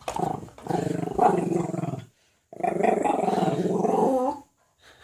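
Two long, low growls of about two seconds each, the second starting about half a second after the first ends.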